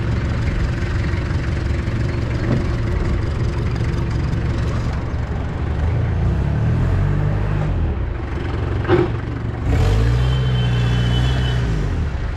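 Mahindra MM540 jeep engine running while the jeep is driven, its pitch shifting with the throttle and rising again about ten seconds in. A short sharp click comes just before that.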